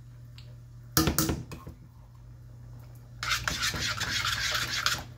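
A wooden spoon stirring thick tomato sauce in a stainless steel pan. It knocks against the pan about a second in, then scrapes along the bottom and sides for a couple of seconds near the end, over a steady low hum.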